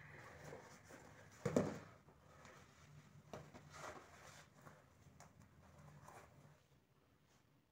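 White high-top sneakers being put on and laced by hand: faint rustling and scuffing of the shoe and laces, with one louder thump about a second and a half in and a few softer knocks after.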